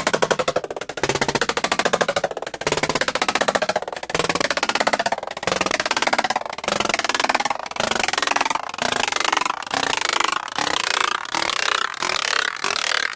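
A short clip of banging noises looped over and over, each repeat faster than the last. The bangs run together into a rapid, dense rattle, and the repeats keep getting shorter.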